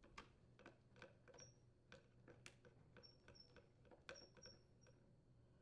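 Faint, irregular clicks and a few short, thin high squeaks of a hand screwdriver turning a screw into a plastic hedge trimmer handle cover.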